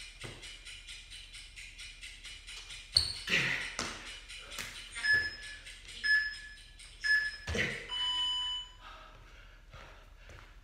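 Workout interval timer giving three short beeps about a second apart and then one longer beep, the countdown that ends the exercise interval. Before the beeps come heavy thuds of a body and feet landing on a tiled floor during burpees, the loudest about three seconds in.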